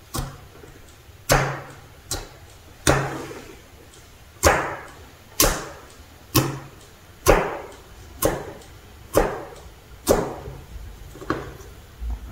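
Fingertips poking and pressing into a thick sugar-and-flour slime, about one poke a second, each a sharp press that tails off quickly.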